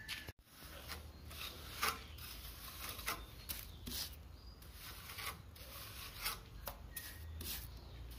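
Steel trowel scraping cement mortar off a mortar board and pressing it into a plastered wall edge against a wooden straight-edge: short scrapes and taps at irregular intervals, about a dozen in all.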